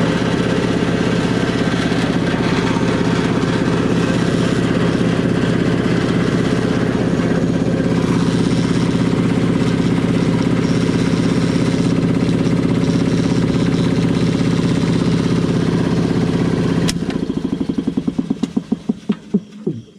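Ingersoll Rand two-stage 80-gallon air compressor running steadily, back in service with a new contactor coil in its magnetic starter. About three seconds before the end it shuts off, and the piston pump coasts down in slowing, fading pulses.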